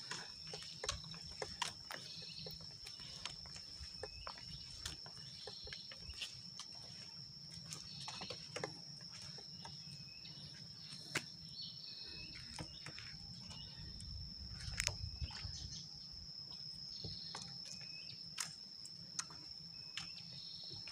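A steady high-pitched insect drone over outdoor ambience, with scattered short clicks and taps throughout.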